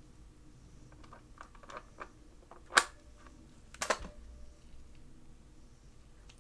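Handling sounds: a few light clicks and taps, one sharp loud click about three seconds in, and a short cluster of clicks a second later.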